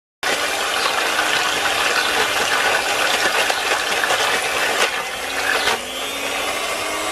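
Electric hand mixer running with its beaters in a muddy puddle: a steady motor hum over splashing, spattering water and mud. About five and a half seconds in the motor slows briefly under the load, then picks up again.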